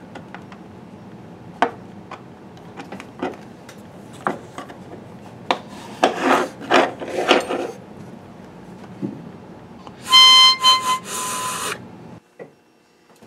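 A metal reed-puller hook clicks and scrapes against brass reeds in the wooden reed cell of a pump organ. Then a free reed sounds one high, reedy note for under two seconds, stuttering briefly as it starts.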